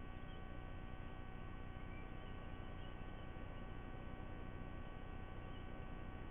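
Steady electrical hum with several constant tones over a low hiss, the background noise of a live nest camera's audio feed.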